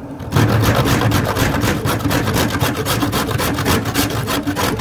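Something hard being grated by hand on a kitchen grater: steady rasping strokes, about five a second, starting a moment in. It is hard going, like grating rocks.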